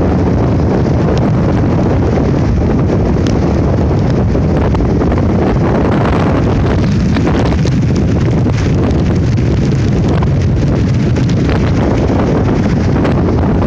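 Hurricane-force wind buffeting a phone's microphone: loud, steady noise, heaviest in the low rumble, with no let-up.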